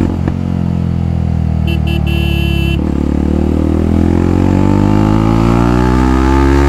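Jawa 42 Bobber's single-cylinder engine through a free-flow full-system race exhaust, accelerating hard through the gears. The pitch climbs, drops at an upshift just after the start and again near three seconds in, then climbs again. The note is loud with a sharp treble edge, the exhaust's ceramic-wool packing not yet burnt in, and a short high beeping tone sounds about two seconds in.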